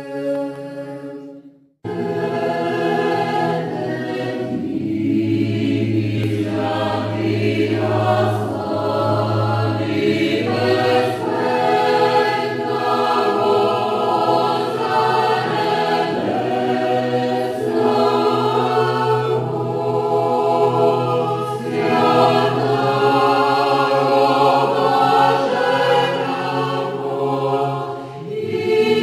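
Youth choir singing an Orthodox church chant a cappella, with a low held note sustained beneath the melody. A chord dies away into a brief break about two seconds in before the singing starts again.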